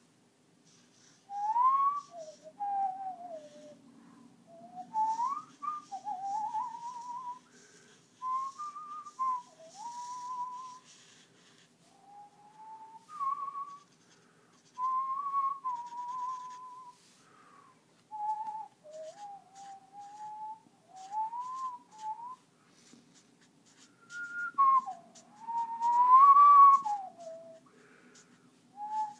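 A person whistling a wandering tune in short phrases, the pitch sliding up and down, with brief pauses between the phrases.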